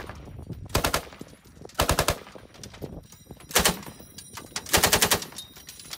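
M240B 7.62 mm belt-fed machine gun firing four short bursts of automatic fire, each under a second long, with the last burst the longest.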